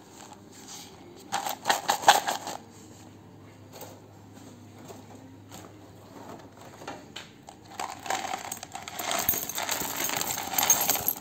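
Small metal screws and washers rattling briefly in a plastic cup a little over a second in, then poured from the cup into a bin of loose screws: a dense clatter of metal pieces lasting about three and a half seconds toward the end.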